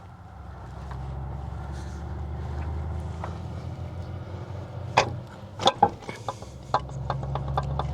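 Sharp metallic clicks and knocks, a handful between about five and seven and a half seconds in, as a Mitsubishi Delica L400's CV axle shaft is worked into the differential, over a steady low rumble.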